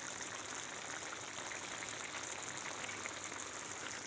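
Chicken curry sizzling steadily in a pan of hot oil, with powdered spices and ginger garlic paste freshly added.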